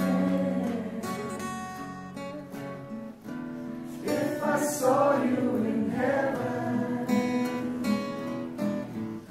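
Acoustic guitar strummed as accompaniment to a group of voices singing a song, the singing louder from about four seconds in.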